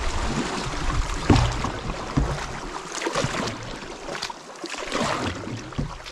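Canoe paddle strokes pulling through the water, a stronger surge of splashing about every two seconds, with water rushing along the hull.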